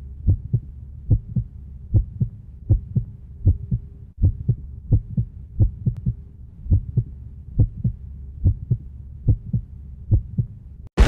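Heartbeat sound effect: paired low thumps, lub-dub, about one pair every 0.8 seconds, over a steady low hum. It cuts off abruptly near the end.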